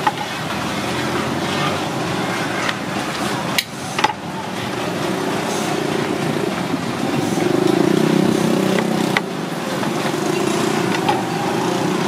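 Steady street traffic hum, with a few sharp knocks of a steel cleaver against a wooden chopping board: one a little over three and a half seconds in, another just after, and one about nine seconds in.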